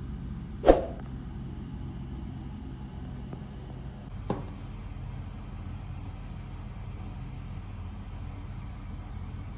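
A vehicle's steady low running rumble. There is a sharp knock about a second in and a lighter knock about four seconds in.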